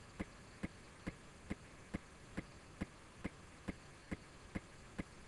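Steady, regular ticking, a little over two ticks a second, over a faint hiss.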